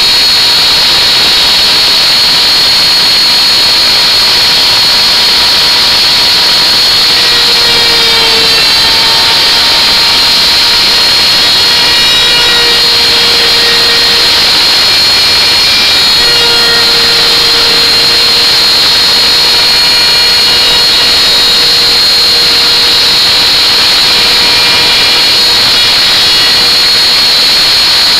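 Electric router motor running at full speed with a loud, steady high-pitched whine as its bit cuts grooves in a wooden board. Its pitch sags slightly a few times along the way.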